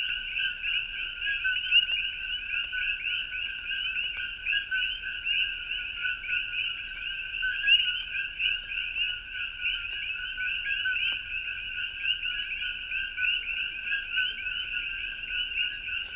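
A dense chorus of coqui frogs, many overlapping chirping calls running on steadily without a break.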